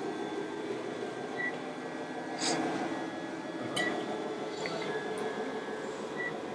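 Steady background noise of an indoor hall. A short high beep sounds about every two and a half seconds, and there are two sharp clinks near the middle.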